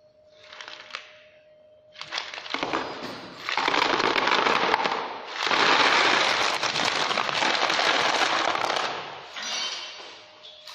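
A bait boat hopper's load of stones sliding out through its opened bottom and clattering into a plastic crate below. The dense rattle starts about two seconds in, is loudest through the middle and dies away near the end.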